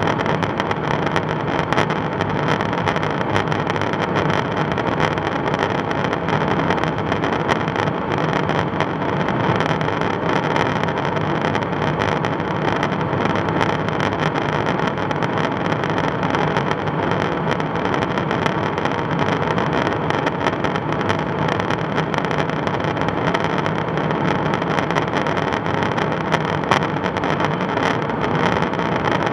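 Steady, loud in-flight cabin noise inside a KC-135 Stratotanker's boom operator's station: the jet engines' drone and the airflow rushing past the fuselage, with a faint low hum.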